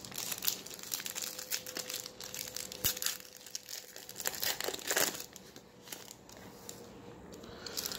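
Foil wrapper of an Upper Deck Ice hockey card pack being torn open and crinkled by hand: a run of sharp, papery crackles, busiest in the first five seconds and thinning out after.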